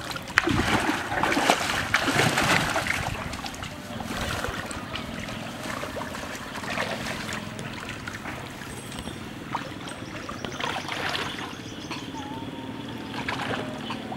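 Water splashing and sloshing as people wade through shallow water and push a bamboo raft into it. The loudest splashes come in the first few seconds, then it settles to a softer, steady lapping and swishing.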